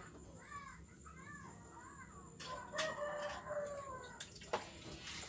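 A rooster crowing once, a long call of nearly two seconds about halfway through, after a run of short rising-and-falling calls. A single sharp click follows near the end.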